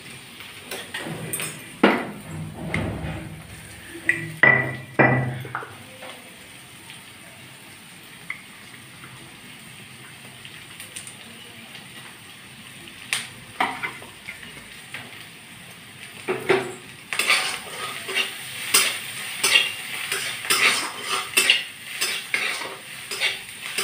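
Shredded bamboo shoot frying in oil in a metal kadai, with a low sizzle and a metal spatula scraping and clinking against the pan. A few strokes come about two and five seconds in, then after a quieter stretch the stirring turns quick and continual for the last several seconds.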